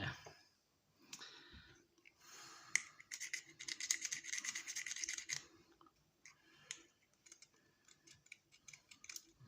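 Electronic scrap being worked apart by hand: a run of rapid scratchy scraping about two seconds in that lasts some three seconds, then scattered light clicks and taps.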